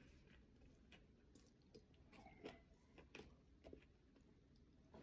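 Faint chewing of steamed fish: soft, irregular mouth clicks and smacks.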